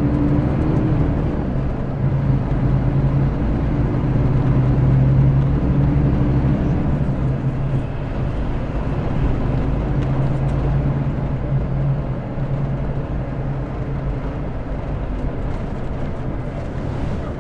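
Mercedes-Benz O-500RS coach's diesel engine running under way, heard from on board: a steady engine drone that eases off after about seven seconds and stays lower to the end.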